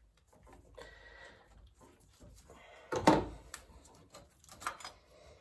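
Faint clicks and rattles of tools and parts being handled on a car engine, with one loud knock about three seconds in.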